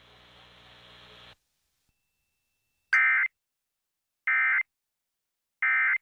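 Three short bursts of EAS SAME digital data tones, the end-of-message code that closes an Emergency Alert System activation, each about a third of a second long and about 1.3 s apart. Before them, faint radio hiss cuts off about a second in.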